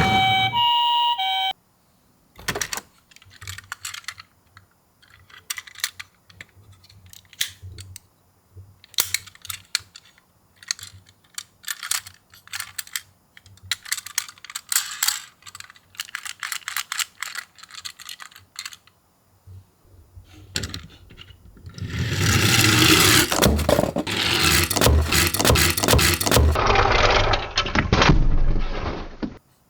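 Die-cast toy minicars rolling down a slope, clicking and rattling as they knock into each other and drop. About twenty seconds in the clatter grows much louder and denser, with a low rumble of many cars rolling at once for several seconds. A siren sound cuts off about a second and a half in.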